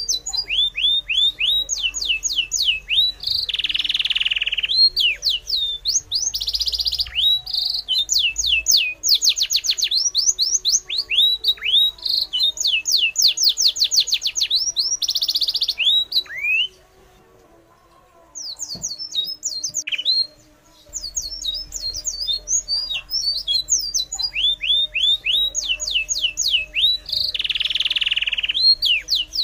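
Birds chirping: fast runs of sharp, falling high-pitched chirps with a harsh, raspy call now and then. The calling drops out briefly twice just past the middle.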